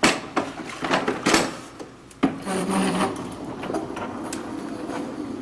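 Mopping with a plastic mop bucket and wringer: sharp knocks and clatter of the mop and wringer, then a steady scraping rub of the mop and bucket across the tile floor.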